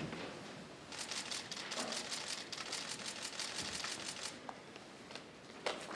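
Press camera shutters firing in rapid bursts of clicks, from about a second in until just past four seconds, with a few single clicks near the end. Under them is the rustle of people in the courtroom rising to their feet.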